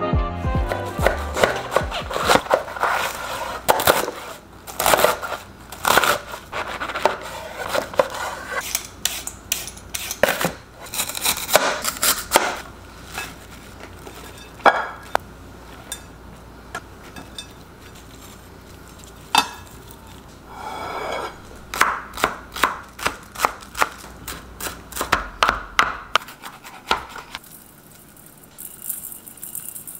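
Kitchen prep sounds: runs of sharp knife chops on a cutting board, mixed with clinks of dishes and utensils, with a quieter stretch in the middle.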